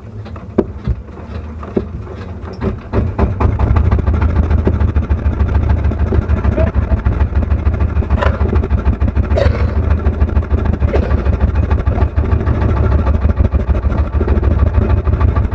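A small boat's engine picks up about three seconds in and then runs steadily with a fast, even pulse.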